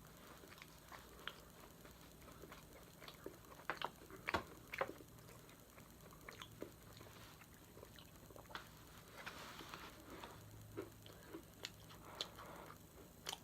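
Faint eating sounds: a fork clicking and tapping now and then, with soft chewing between.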